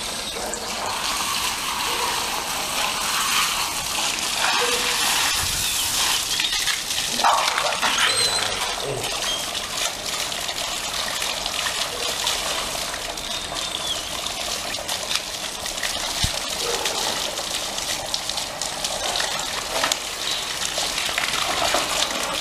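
Water from a garden hose gushing and splashing steadily onto a German Shepherd's wet coat and the tiled ground.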